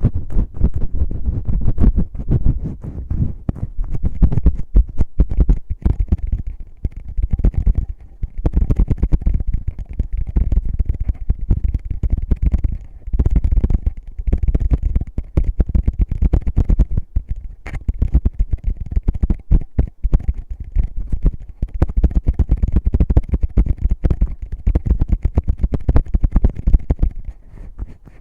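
Fingertips rubbing, scratching and tapping right on an ASMR microphone's ears. It comes as a rapid, close, muffled rumble broken by quick knocks, with a few brief lulls.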